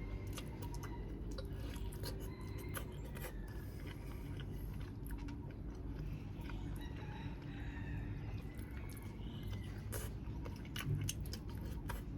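Close-miked chewing and lip-smacking while eating grilled chicken: many short wet clicks and smacks, irregularly spaced, over a steady low hum.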